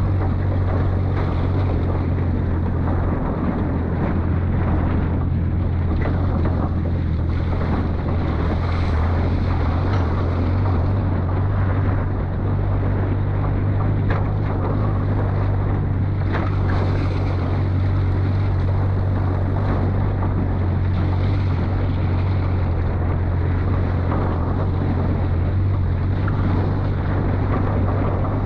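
Off-road vehicle engine running at a steady low drone while driving, with a few faint knocks from the vehicle over the terrain.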